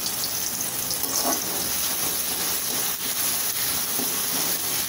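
Sliced onions sizzling steadily in hot oil in a kadai over a high flame.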